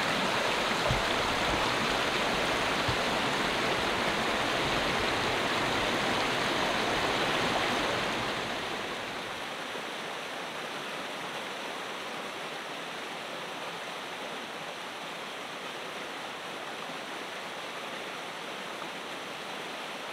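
A rocky mountain creek running over stones: a steady rush of water that drops to a quieter, even rush about eight seconds in.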